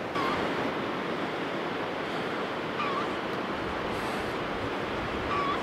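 Steady rushing outdoor noise with three short, high-pitched animal calls spaced a couple of seconds apart.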